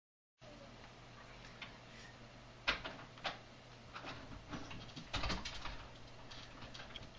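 Quiet room tone with scattered soft knocks and taps, the loudest a little under three seconds in and a cluster around five seconds in.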